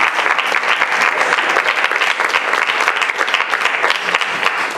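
An audience applauding steadily, many people clapping at once, at the close of a lecture.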